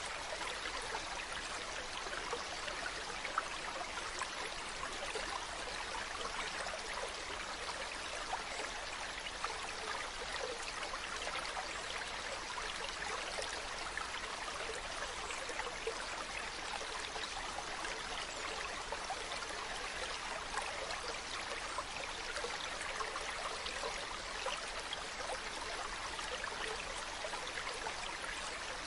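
Mountain stream running steadily over rocks, an even rushing with small splashes and trickles throughout.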